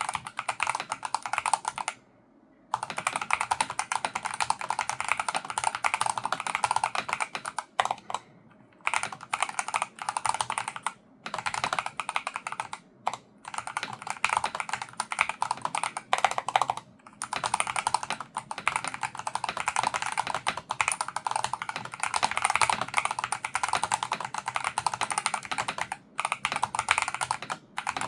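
Fast, continuous typing on a Logitech G Pro X TKL Rapid keyboard with Hall-effect magnetic linear switches, a rapid run of key clacks broken by several short pauses.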